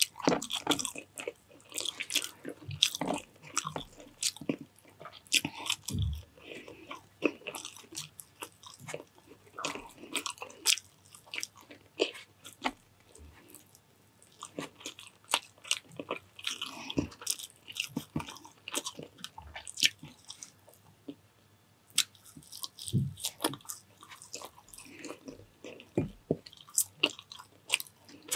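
Close-miked eating: a person biting and chewing mouthfuls of food, with crunchy bites and many quick mouth clicks, irregular throughout.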